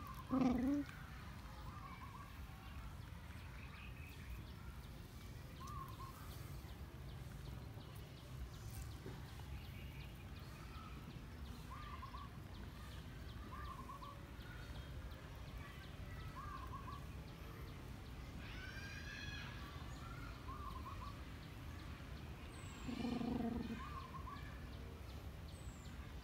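Dog and puppy play-fighting: a short low growl at the very start and another about 23 seconds in. Between them, small birds chirp faintly every second or two over a steady low background hum.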